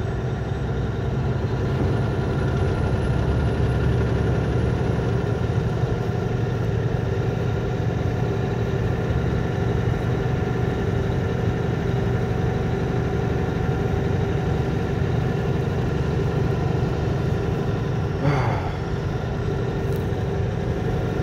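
Semi-truck engine and road noise from inside the cab while driving, a steady low rumble with a constant engine drone.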